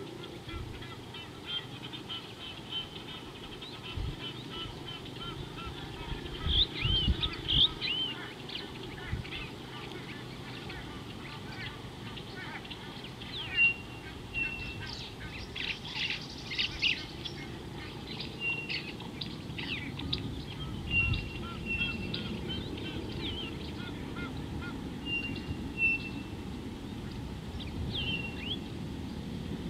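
A flock of Egyptian geese calling with harsh honks that come in bursts, loudest about six to eight seconds in and again around a quarter-to-half of the way through, among other birds' short repeated chirps.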